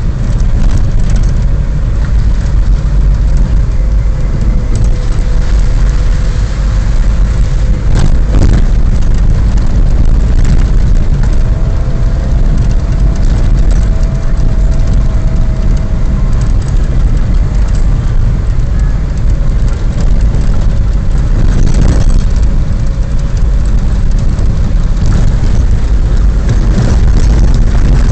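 Engine and road noise inside the cabin of a four-wheel-drive vehicle driving over a rough, wet dirt track: a loud, steady low rumble, with a sharp thump from the ride twice.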